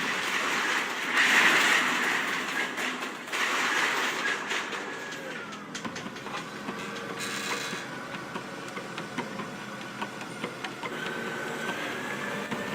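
Truck and lifting gear moving heavy steel plate: a loud rush of noise about a second in, then a steady mechanical din with many small rattles and clanks.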